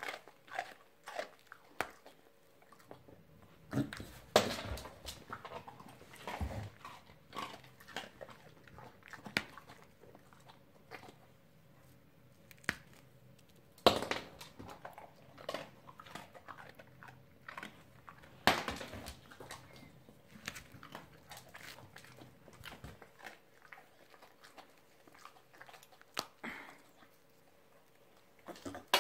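A dog crunching and chewing hard dog biscuits. Sharp crunches come in irregular bouts with pauses between, the loudest about 4, 14 and 18 seconds in.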